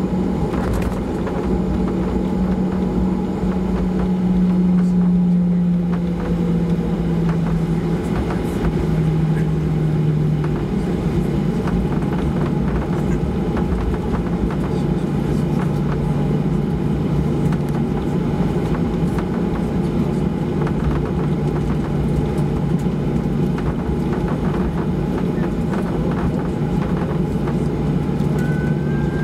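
Cabin noise of a Boeing 737-800 taxiing: its CFM56-7B turbofans run at low thrust with a steady hum and low rumble, heard from inside the cabin. The hum steps down slightly in pitch during the first ten seconds.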